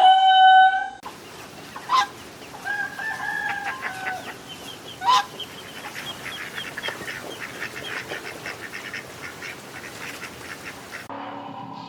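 Hens clucking: a drawn-out call, then a fast run of short clucks. It is preceded by a loud held tone that stops about a second in.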